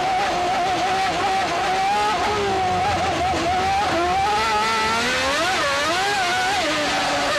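1995 Formula One car engines running at high revs, the pitch rising and falling with throttle and gear changes.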